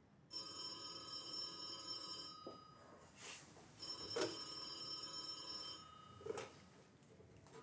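Desk telephone ringing twice, each ring about two seconds long with a short pause between. A couple of soft knocks come after the rings.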